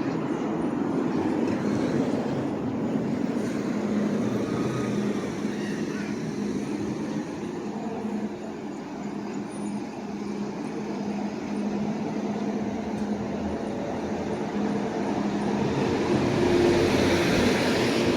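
City street traffic: a steady low engine hum under road noise, with a vehicle passing louder near the end, and faint voices.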